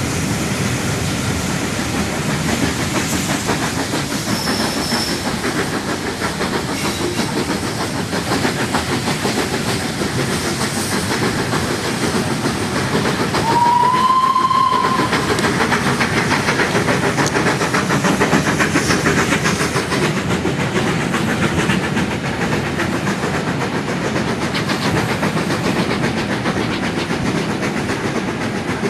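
Steam-hauled passenger train running, heard from inside a carriage as it comes out of a tunnel and passes through a station: a steady rumble and rail noise, with a brief whistle about halfway through.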